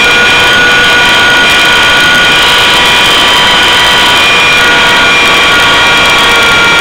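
Align T-Rex 600 CF radio-controlled helicopter in flight, heard very loud from a camera mounted on board: the drive and gears give a steady high whine over the rushing noise of the rotor.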